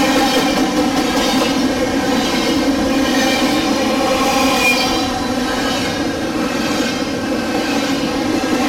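Double-stack container train of loaded well cars rolling past on the rails: a steady, continuous sound of steel wheels on track.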